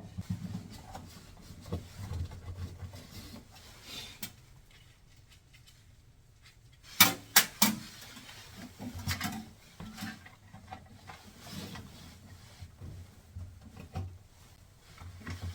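Handling sounds as a wire spring clamp is worked into the groove of a washing machine's rubber door boot: soft rubbing and light knocks, with three sharp clicks about seven seconds in.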